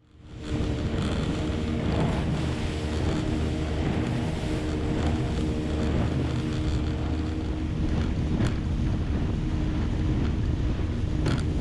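Outboard motor on a small aluminium boat running steadily at speed, with heavy wind buffeting the microphone and water rushing past the hull; it fades in over the first half-second.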